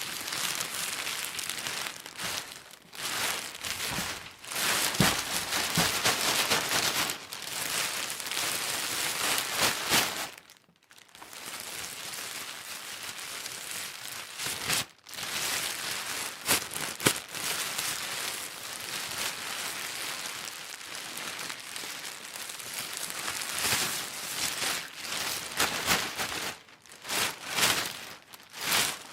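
Plastic bag being crinkled and rustled by hand, a dense run of crackling with louder crunches here and there and two brief pauses, one about ten seconds in and one about fifteen.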